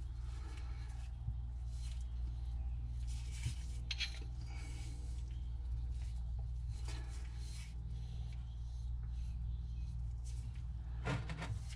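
Faint rubbing and light clicks of a metal pipe nipple and a threaded fitting being handled and turned together in gloved hands, over a steady low hum.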